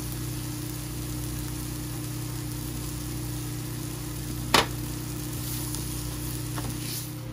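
A steady low kitchen hum with a faint hiss while mushrooms, spinach and broccoli cook quietly in a nonstick frying pan. One sharp clack comes about four and a half seconds in.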